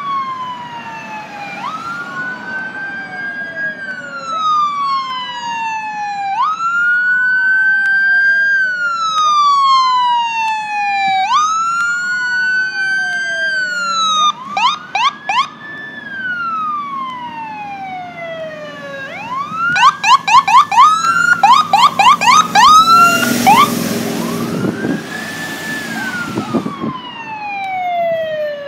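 Electronic emergency-vehicle sirens wailing, two slow rising-and-falling tones overlapping out of step. They switch to a rapid yelp about halfway through and again about two-thirds through. A loud blaring horn sounds near the end.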